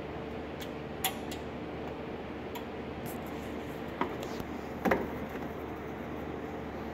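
A few light metallic clicks and clinks from front brake pad hardware being handled at the caliper, the loudest near the five-second mark, over a steady background hum.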